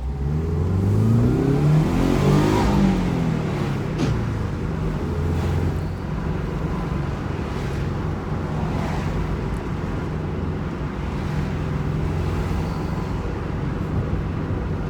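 A 2002 Subaru WRX's turbocharged 2.0-litre flat-four being pushed hard under acceleration. The revs climb for about two and a half seconds and then drop, with a short sharp sound about four seconds in. After that the engine runs steadily at cruising revs.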